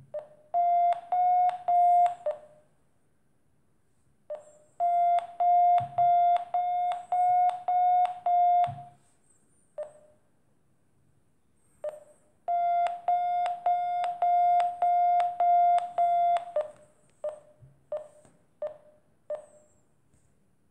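Acoustic variometer app on a Samsung phone sounding its beeping climb tone: a steady mid-pitched beep repeated two to three times a second in three runs of two to four seconds each, then a string of short, separate beeps near the end. A few faint low thumps, likely fingers tapping the phone.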